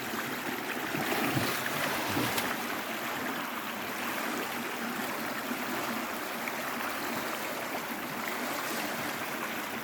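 Creek water running steadily with a current, a constant rushing sound that swells a little for a second or two near the start.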